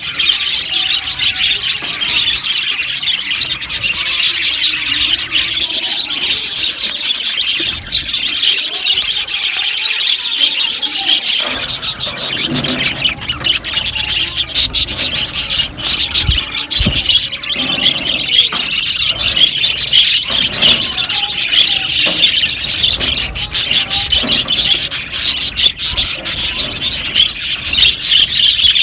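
A flock of budgerigars chirping and chattering continuously, many high calls overlapping into a dense din.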